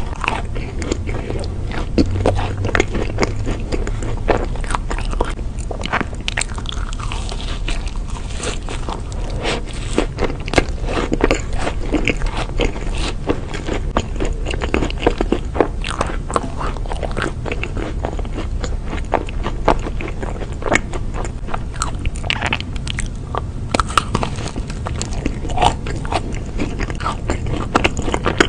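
Close-miked eating of chocolate-coated sweets and a macaron: a continual run of sharp crisp crunches and wet chewing as thin chocolate shells and crumbly biscuit break between the teeth, over a low steady hum.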